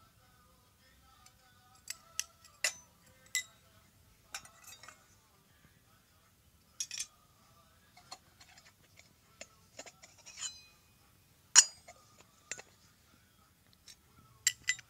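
Miniature stainless steel toy pots, lids and ladles clinking against each other as they are handled: a scatter of sharp metallic clinks, some ringing briefly, the loudest a little before the end.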